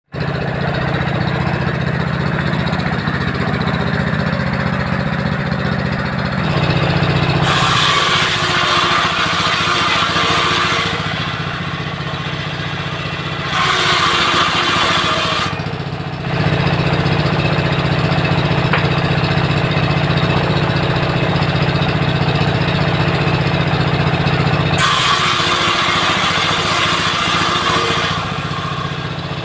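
A 16 HP diesel engine runs steadily, driving a homemade table saw's circular blade. Three times, for a few seconds each, the blade rips through wood with a loud, harsh cutting hiss over the engine.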